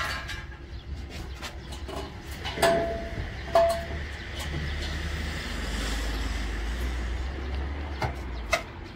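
Steel square tubing of a roof frame being handled, with two sharp ringing metal clanks a second apart early on and a few lighter knocks. A low rumble swells through the second half.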